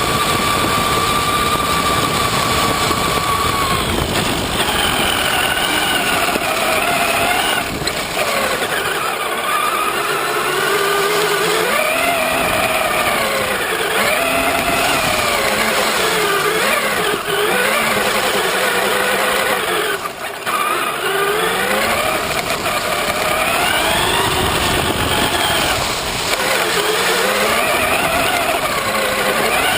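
Traxxas Summit RC truck's electric motor and geared drivetrain whining as it drives. The pitch holds steady for a few seconds, then rises and falls over and over as the throttle is worked.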